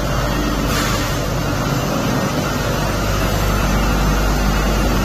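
Steady, loud machinery noise in a metalworking factory: a continuous low rumble under a broad hiss, with no distinct strokes or breaks.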